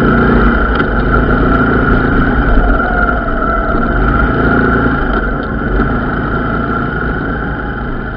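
Diesel train engine running as the train passes the level crossing, loudest early and slowly fading as it moves away.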